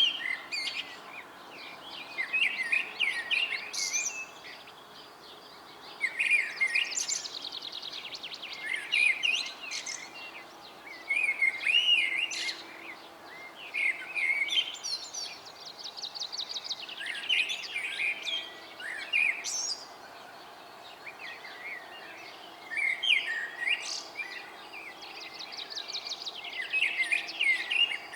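Songbirds in a dawn chorus: several birds sing and chirp over one another. A rapid trill comes back every several seconds among shorter chirps and whistled notes.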